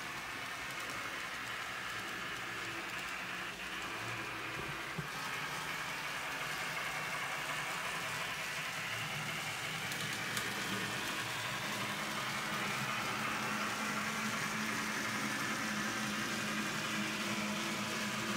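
N-scale model train, a Union Pacific 844 steam locomotive pulling passenger cars, running along Kato Unitrack. A steady rolling noise of wheels and motor grows slowly louder as the train runs.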